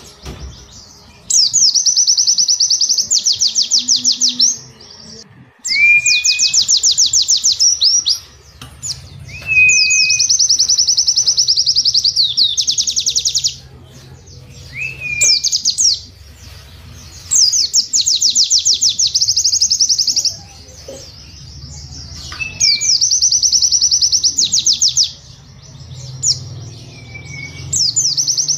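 White-eye (pleci) song: bouts of very fast, repeated high notes, the 'cap cap cap' and 'wit wit wit' phrases, each bout lasting two to four seconds with short pauses between, about six bouts in all. A few short rising whistles fall between the bouts, over a low steady hum.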